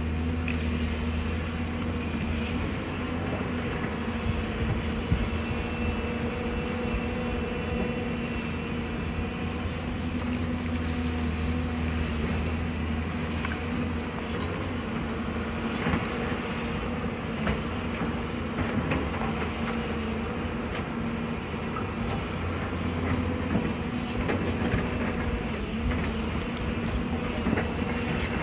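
Excavator's diesel engine running steadily under work, with scattered short knocks and scrapes of the bucket on rock.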